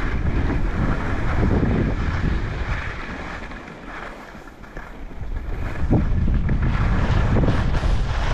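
Wind buffeting a body-worn camera's microphone as the rider slides down a groomed snow slope, mixed with the hiss of sliding over packed snow. It eases a little before halfway through and picks up again about two seconds later.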